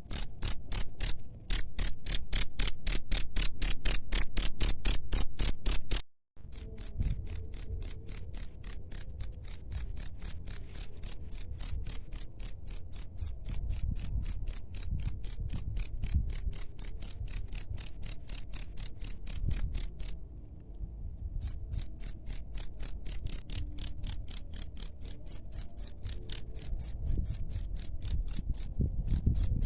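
A cricket chirping: a loud, high-pitched run of evenly spaced pulses, about four a second. The sound cuts out completely for a moment about six seconds in and for about a second around twenty seconds in.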